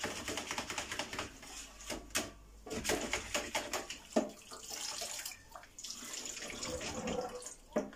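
Water running and splashing in a stainless steel sink as a cooker hood's metal mesh grease filter is rinsed, with scattered knocks and clatters of the filter against the sink.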